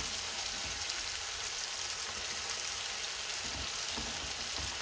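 Food frying in a pan: a steady, even sizzle.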